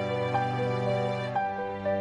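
Background music: a held low chord with light melody notes coming in about once a second.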